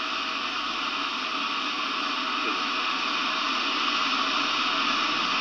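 Steady, even hiss like static, with no distinct sound events.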